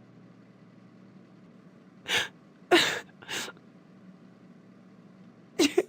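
A Plotagon animated character's synthesized voice making three short, breathy vocal bursts about two to three and a half seconds in, with a fourth starting near the end.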